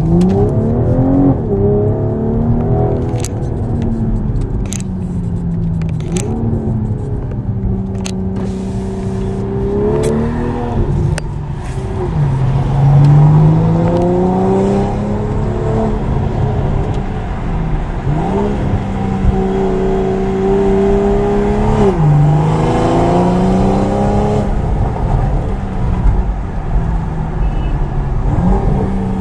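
BMW M340i's B58 turbocharged straight-six, breathing through a Milltek sport downpipe and full exhaust system, pulling through the gears. The pitch climbs under throttle and drops at each shift, several times over, with steady stretches between. A few sharp clicks come in the first ten seconds.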